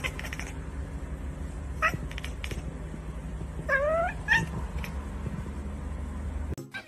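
Black-and-white cat meowing: a short call about two seconds in, then a longer rising meow and a brief second call around four seconds, over a steady low hum.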